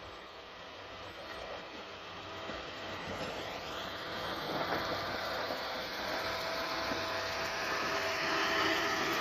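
Motor grader's diesel engine running and growing steadily louder.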